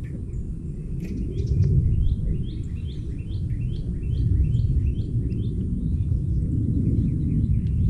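A bird singing a quick run of about ten repeated chirping notes, starting about a second and a half in, with a few scattered chirps around it, over a louder low rumble of outdoor noise.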